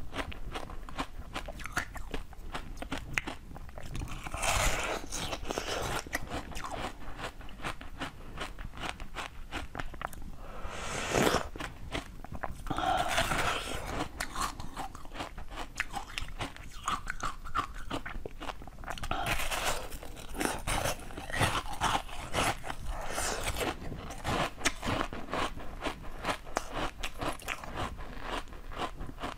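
Close-miked crunching and chewing of ice frozen with basil seeds: a dense run of sharp crackles, with louder spells of crunching every few seconds as fresh bites are taken.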